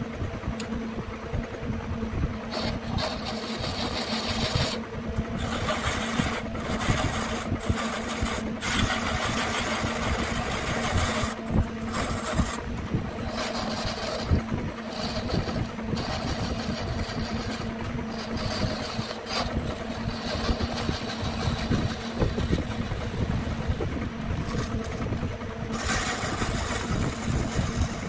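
Wood lathe running with a steady motor hum while a flat chisel cuts the spinning wood, the hiss of the cut coming and going in short passes and heaviest near the end.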